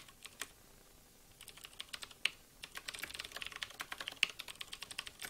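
Computer keyboard typing: a few scattered keystrokes, then a quick, steady run of keystrokes from about a second and a half in.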